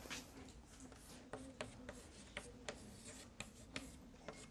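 Chalk writing on a blackboard: faint, irregular sharp taps and clicks of the chalk against the board.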